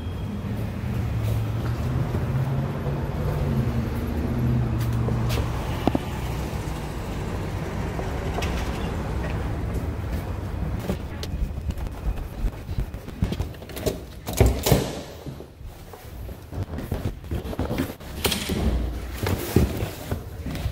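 Steady low hum for the first few seconds, then footsteps and a heavy door being pushed open. Several loud thumps and knocks follow near the end.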